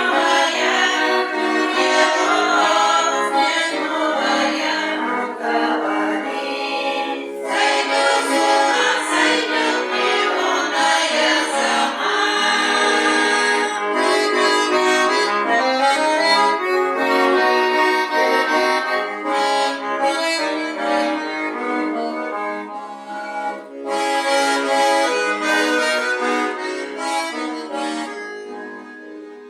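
Accordion playing a folk tune, melody over held chords, dropping away in the last couple of seconds.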